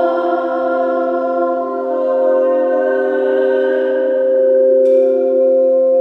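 Several crystal singing bowls ringing together in steady, overlapping sustained tones. About five seconds in, a sharp strike adds a new, higher ringing tone.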